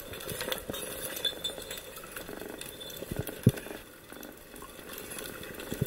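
Underwater ambience picked up by a submerged camera: a faint, even crackle of many small clicks, with a few low knocks about three and a half seconds in and again near the end.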